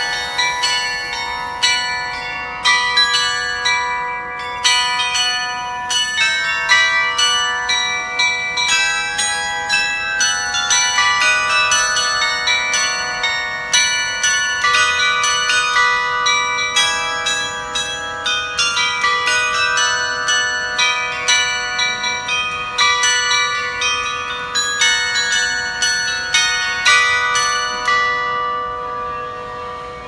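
A cluster of small bronze bells on a pole chiming a fast sequence of notes at different pitches, several strokes a second, each note ringing on under the next. The ringing dies away near the end.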